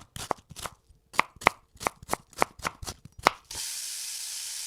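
A knife chopping on a cutting board, about a dozen quick strikes. About three and a half seconds in it gives way abruptly to the steady sizzle of food frying in a pan.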